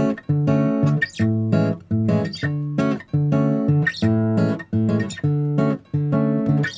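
Background music: guitar chords strummed in a steady rhythm, about two strums a second.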